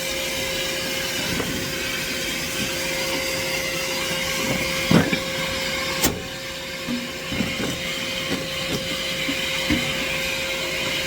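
Vacuum running steadily with a constant motor whine, with a knock about halfway through and a sharp click just after.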